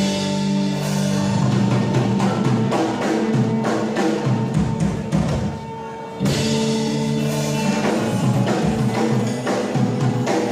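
Live modern gamelan band playing: struck percussion and drums with electric guitars over held pitched notes and a steady beat. The sound thins out briefly, then the full band comes back in sharply about six seconds in.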